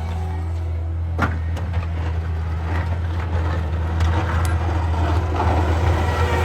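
Cat 289 skid steer's diesel engine running steadily while it pushes snow with a 10-foot Arctic pusher, with a sharp knock about a second in.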